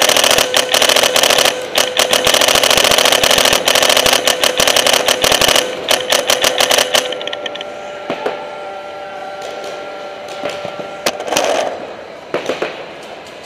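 Paintball markers firing in rapid streams of shots for about the first seven seconds, then dying down to a few scattered pops.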